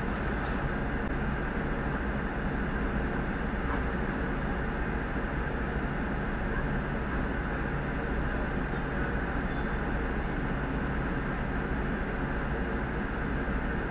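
Fire truck's diesel engine running steadily, a low even hum picked up by the dashcam in the cab.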